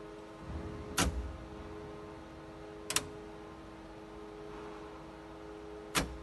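Powered-up Okuma OPUS5000 CNC control cabinet running: a steady electrical hum with several steady tones from the power supply and its cooling fans. Three sharp clicks break it, about a second in, at about three seconds and near the end.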